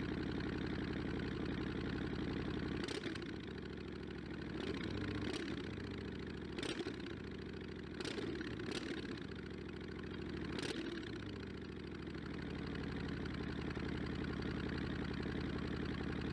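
Motorcycle engine idling steadily. Through the middle its pitch shifts up and down several times, with a few sharp clicks, before it settles back to a steady idle.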